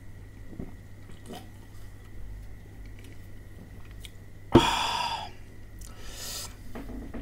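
Drinking soda from an aluminium can with faint swallows, then about four and a half seconds in a sharp knock as the can is set on the table, followed at once by a loud breathy exhale. A second, softer breath out comes about a second later.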